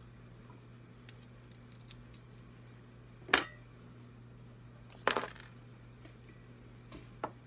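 Small metal guitar hardware, nuts or washers from the control plate, clinking onto a hard surface after a few faint ticks. There are three sharp ringing clinks: the loudest about three seconds in, another about two seconds later, and a smaller one near the end.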